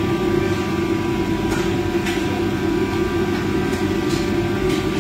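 Steady roar of a commercial kitchen's extractor hood fan, with a low hum, and a few faint clinks of plates and utensils over it.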